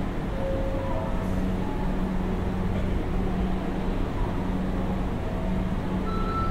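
Station platform ambience beside a stopped Sanyo Electric Railway commuter train with its doors open: a steady low hum and drone from the standing train's onboard equipment. A steady high electronic tone starts near the end.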